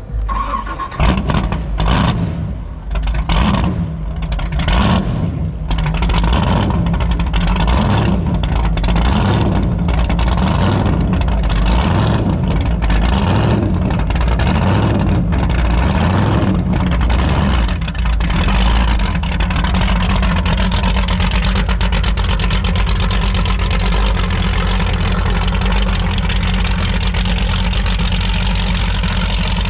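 Powerboat engine revved in short blips about once a second, then held at a steady high-speed run.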